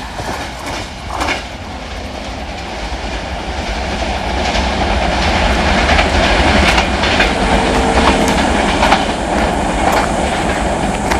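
Passenger train coaches rolling past at speed over rail joints, a steady deep rumble with sharp, irregular wheel clicks as the wheels strike the joints. It grows louder over the first half.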